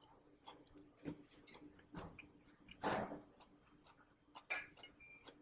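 A person chewing a mouthful of food, with scattered small mouth clicks and one louder rustling burst about three seconds in.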